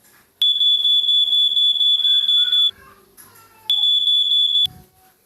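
Smoke alarm sounding a shrill, steady high-pitched tone for about two seconds, then again for about a second after a short gap. Each sounding starts and cuts off abruptly.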